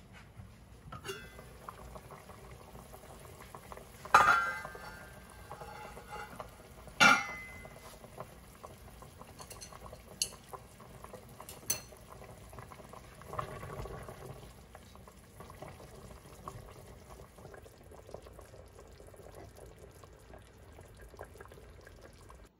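Pork boiling in a large stockpot on a gas hob, with a steady low bubbling. Two loud metal clanks about four and seven seconds in, and a few lighter clicks later on.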